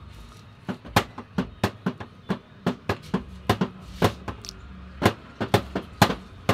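A quick, irregular run of sharp clicks or knocks, about three a second, over a low steady hum.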